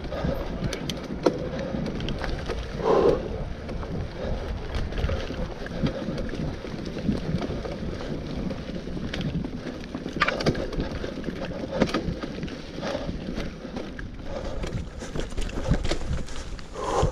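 Mountain bike riding over a rough dirt and leaf-covered trail: a steady rumble of tyres and wind on the microphone, with frequent short rattles and knocks from the bike over bumps.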